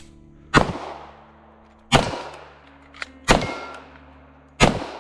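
Four pistol shots, evenly spaced about 1.3 s apart, each with a short echoing tail, and a fainter sharp crack a little after three seconds in.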